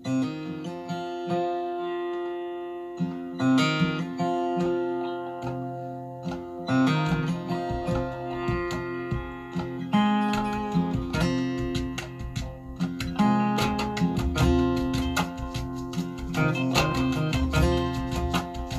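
Recorded acoustic guitar music played back on a hi-fi system: plucked and strummed notes ringing over a low sustained tone, with frequent note attacks.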